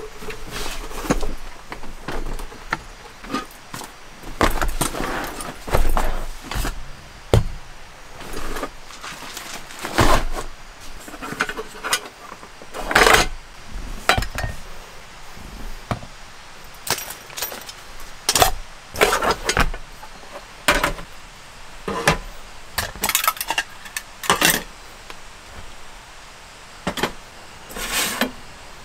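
Camp cookware being unpacked and set down on a wooden table: a kettle, nesting pots and bottles give irregular clinks and knocks, some sharp, at uneven gaps.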